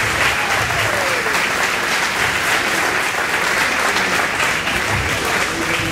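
A room of party guests applauding steadily, with a few voices among the clapping.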